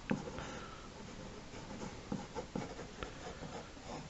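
Sketching strokes: a drawing tool scratching across the drawing surface in a run of short, quick strokes, with a sharp tick just after the start and another about three seconds in.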